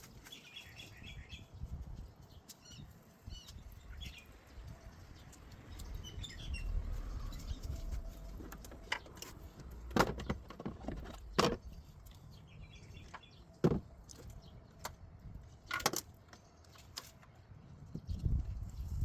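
Scattered sharp clicks and knocks from hands-on work on a car's headlight, four or five of them in the second half, over a low rumble around the middle. Birds chirp faintly in the first few seconds.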